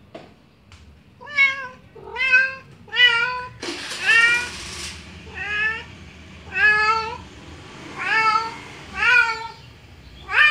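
Grey tabby domestic cat meowing again and again, about nine drawn-out calls roughly a second apart: the calling of a cat in heat. A brief rush of noise sounds about four seconds in.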